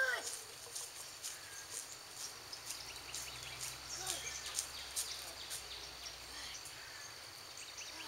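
Faint outdoor ambience: scattered short high chirps and ticks, with a few brief arched calls now and then and a faint low hum in the middle.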